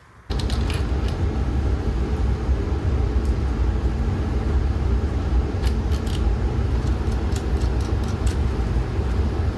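A steady low rumbling drone that starts abruptly just after the beginning, with a few light clicks and taps of metal parts or tools being handled about halfway through and toward the end.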